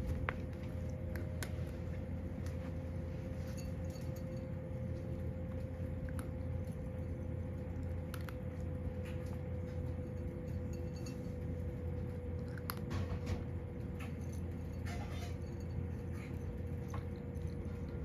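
A cat eating dry kibble from a ceramic bowl: scattered crunches and small clinks against the bowl, over a steady low hum.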